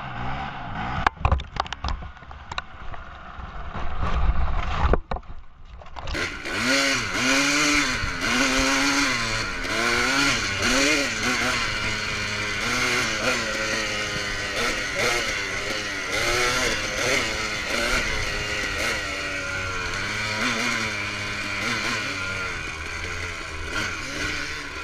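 Dirt bike engine running hard, its pitch rising and falling again and again as the throttle is worked. A few sharp knocks sound in the first couple of seconds, and the engine sound drops out briefly about five seconds in.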